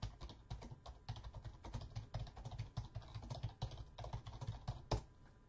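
Typing on a computer keyboard: a quick run of key presses, ending with one louder keystroke near the end.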